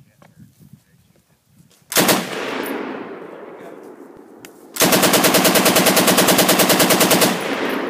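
M60 machine gun firing full-auto in 7.62 mm NATO: a short burst about two seconds in that echoes away, then a sustained burst of about two and a half seconds at roughly ten to twelve rounds a second.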